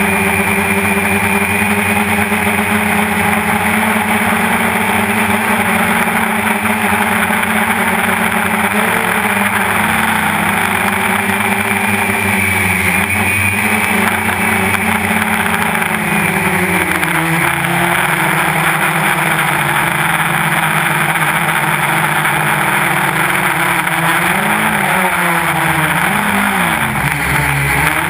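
Quadcopter's electric motors and propellers buzzing steadily in flight, recorded from the camera on the drone itself. The pitch of the buzz dips and rises several times as the throttle changes, most clearly around ten seconds in, again around seventeen seconds, and near the end.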